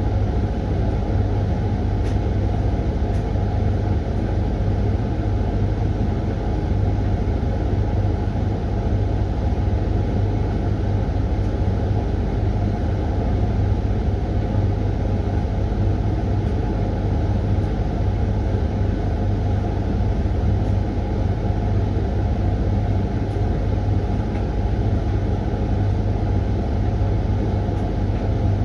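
Hoover washing machine running its 20-minute Refresh cycle with a constant low hum and no pauses, typical of the drum in a steady spin.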